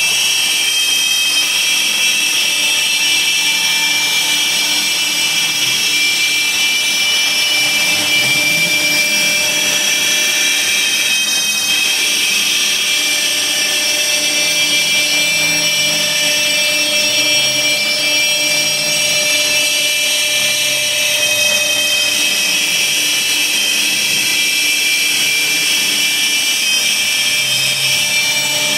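Laguna Swift CNC router cutting a logo into 1/2-inch plywood: a steady, high spindle whine with the bit chewing through the wood. Lower tones underneath rise and fall in pitch as the machine works.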